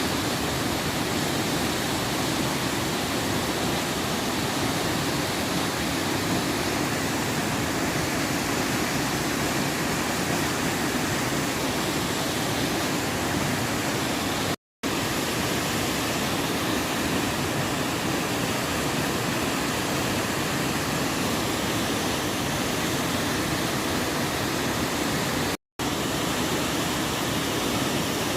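Mountain stream water rushing steadily over rocks, an even roar with no break in it except two very short dropouts to silence, about halfway through and near the end.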